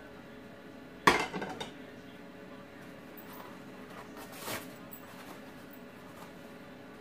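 A plate set down with a sharp clatter and a brief rattle about a second in, then a softer rustle of kitchen paper being torn off the roll around four and a half seconds in.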